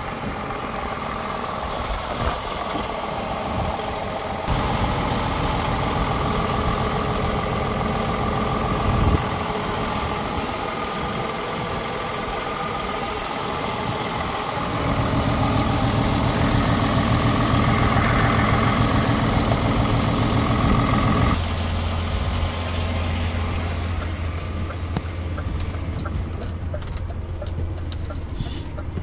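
DAF XF 480 truck's PACCAR MX-13 straight-six diesel idling steadily. Its sound changes abruptly several times, and is duller and deeper over the last several seconds, with a run of sharp clicks near the end.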